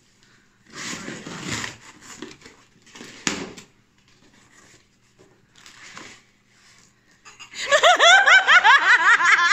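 Packing tape and cardboard being ripped in a few short noisy bursts as a taped box is torn open, then loud laughter breaking out near the end.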